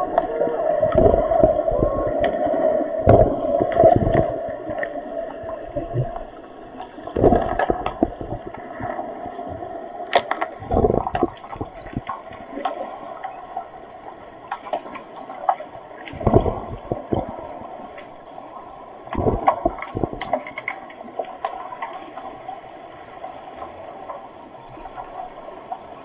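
Muffled underwater sound in a swimming pool during underwater hockey play: a steady churn of moving water, repeated low thumps, and scattered sharp clicks.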